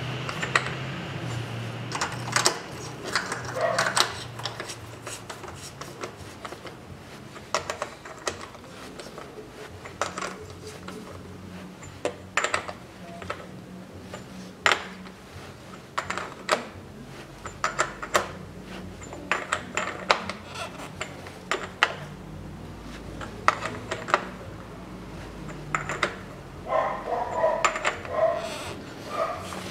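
Socket wrench turning the valve cover nuts down on a Toyota 3S-FE engine: scattered metallic clicks and clinks at irregular intervals.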